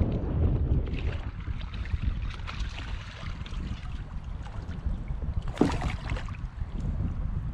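Wind buffeting the microphone as a low rumble, with water sloshing and small knocks around a kayak as a hooked largemouth bass is brought in. A louder splash-like burst comes about five and a half seconds in.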